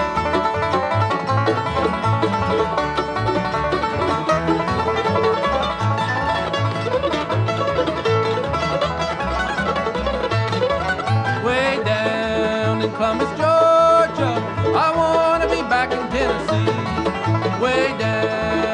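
Bluegrass band music from a 1970s vinyl record: rolling banjo with guitar and a bass keeping a steady beat.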